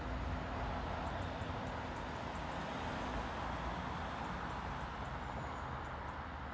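Diesel multiple unit pulling away down the line. Its engine and wheel noise is a steady low rumble that slowly fades as it draws off.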